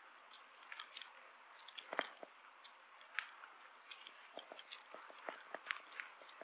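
Bicycle rolling over a rough, gritty pathway: many irregular small clicks and crackles, with a few sharper knocks about two seconds in and again near the end.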